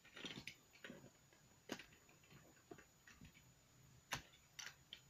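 Faint, irregular plastic clicks and taps as Snap Circuits parts are pressed onto the plastic base grid, the loudest about four seconds in.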